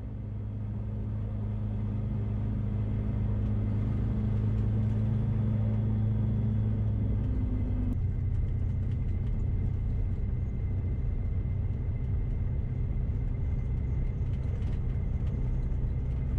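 A Sling 4's Rotax 914 turbocharged flat-four engine and propeller running at taxi power, heard inside the cockpit as a steady low drone. About eight seconds in, the sound changes abruptly to a rougher, less pitched drone.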